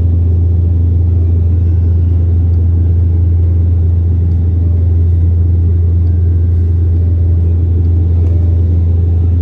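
Airliner cabin noise in flight: a loud, steady, deep drone of engines and rushing air, heard inside the cabin.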